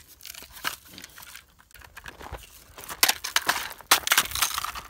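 Footsteps crunching on gravel, faint at first and then louder and quicker from about three seconds in.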